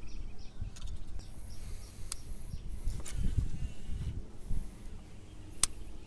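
Wind rumbling on the microphone and rod-handling noise, with two sharp clicks, the louder one a little before the end, and faint insects chirping.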